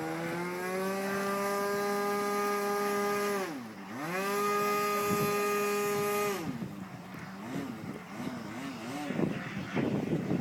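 Remote-control model airplane's motor and propeller running up, its pitch climbing over the first few seconds. About 4 s in the throttle is cut and opened again, the pitch holds, then drops away about 6 s in and wavers up and down. A lower steady hum runs underneath.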